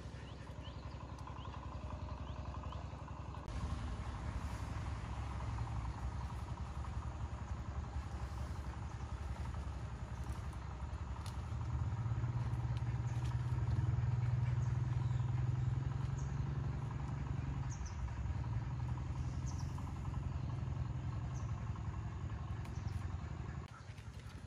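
An engine running steadily with a low hum, growing louder about halfway through and then easing off a little.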